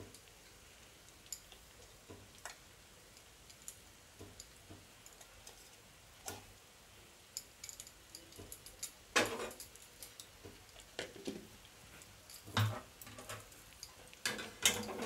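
Scattered light clicks and taps as boiled potatoes are mashed and mixed with spice masala in a bowl, with a few louder knocks in the second half.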